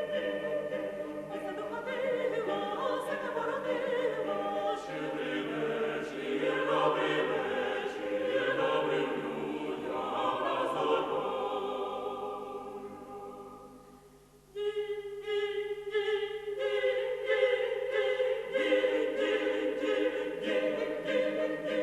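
Vocal ensemble singing a Ukrainian Christmas carol in multi-part harmony. About two-thirds of the way through the voices die away almost to silence, then come back in together on a long held chord.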